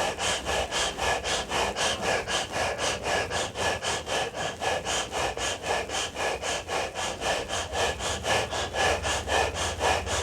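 Sitkari pranayama: rapid rhythmic hissing breaths through the teeth, about four a second, with a thin whistle in them. They are done to cool and moisten a dry, catching throat.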